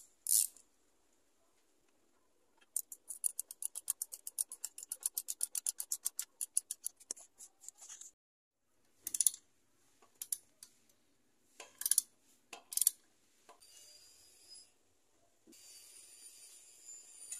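A hand ratchet wrench clicking rapidly, about seven or eight clicks a second and slowing near the end, as a bolt is run in. Then a few sharp metal clinks of tools, and a fainter high hiss near the end.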